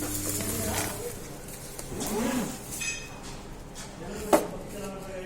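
Kitchen utensils clattering: a short ringing metallic clink about three seconds in and a sharp knock just after four seconds, the loudest sound. A low hum stops about a second in.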